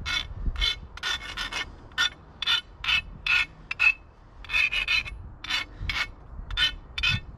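Hand file scraping across the cut end of a 1/2-inch steel EMT conduit, about two short strokes a second with a brief pause near the middle: deburring the saw-cut rim so a set-screw coupling will slip on.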